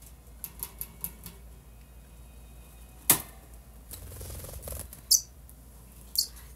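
Small pet bird let out of its cage: a few light taps and clicks, then a sharp click about three seconds in, and a short flutter of wings about four seconds in. Two short high chirps follow near the end.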